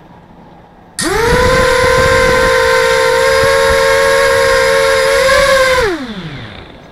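Quadcopter brushless motors with three-bladed props spinning up abruptly about a second in and holding a steady high whine for about five seconds, then winding down with a falling pitch.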